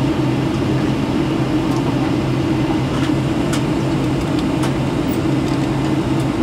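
Steady in-flight cabin drone of a Boeing 757-200 on approach: jet engine and airflow noise with a constant low hum. A few faint ticks sound over it.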